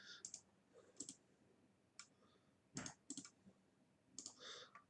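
Faint computer keyboard clicks: scattered keystrokes in small clusters with pauses, typing a phrase in.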